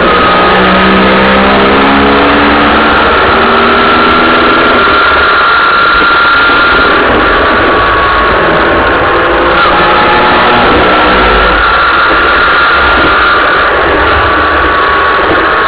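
Steady, loud road and engine noise from a car driving in traffic on a city highway, with a whining tone that slowly drifts in pitch. In the first few seconds a lower engine note climbs in steps as the car speeds up.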